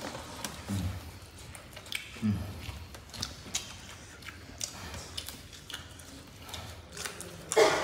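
Eating sounds of people eating fried chicken, rice and raw long beans by hand: scattered small clicks of chewing and lip-smacking, with a few brief hummed sounds and a louder short vocal sound near the end.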